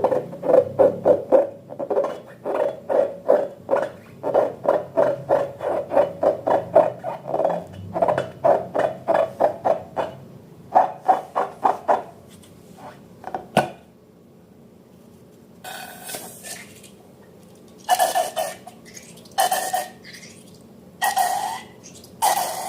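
Slime and balloons being handled: a fast run of short squishy pops, about four a second, that thins out and stops about halfway through, then five longer, louder squelches.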